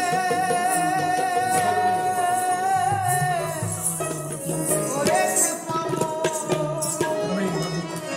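Live Baul folk song: a male singer holds one long high note with a slight waver for about three and a half seconds, then the voice drops away while the band of dotara, tabla, drum and harmonium plays on with jingling percussion strokes.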